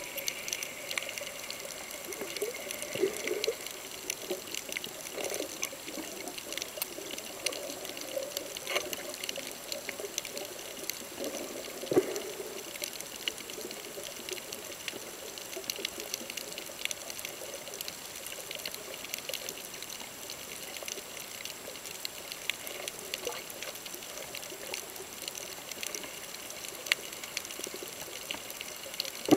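Underwater ambience picked up by a camera below the surface: a steady muffled watery rush with many scattered faint clicks and crackles, one sharper click about twelve seconds in.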